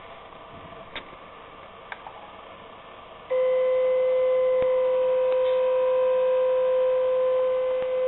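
CNC router's Z-axis stepper motor whining at one steady pitch, starting suddenly about three seconds in, as the spindle creeps down in a touch-off probing move. The alligator ground clip is not attached, so the circuit never closes and the bit keeps descending toward the aluminium zero plate. A couple of faint clicks come before it.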